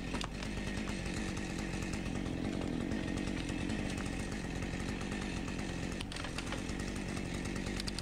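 Husqvarna 550 XP two-stroke chainsaw running steadily, cutting into a hung-up birch trunk.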